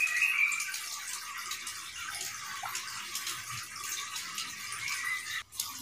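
Steady hissing background noise, almost all of it high-pitched, with a brief dropout near the end.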